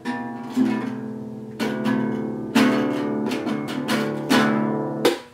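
A 36-inch child-size classical guitar strummed by hand: about half a dozen chords, each left to ring, stopping abruptly just before the end.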